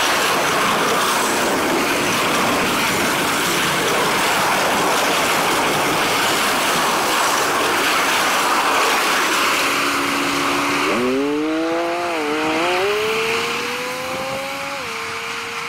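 Double-stack container freight train passing close at speed: a steady rushing roar of wheels on rail and moving air. About eleven seconds in the roar thins and a wavering whine that rises in pitch comes up over it.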